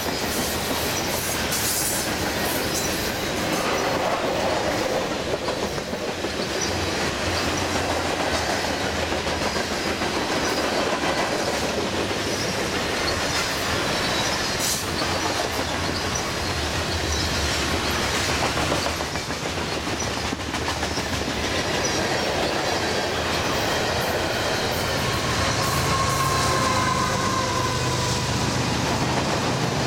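Long freight train's covered hopper cars rolling past steadily, wheels clicking over the rail joints, with a thin wheel squeal near the end.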